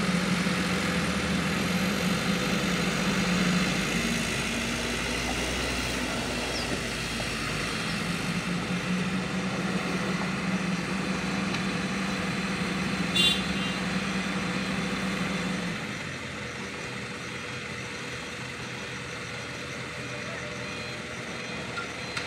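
Diesel engines of a small dump truck and a hydraulic excavator running with a steady hum; the deeper rumble drops off about 16 seconds in. A brief sharp high sound about 13 seconds in.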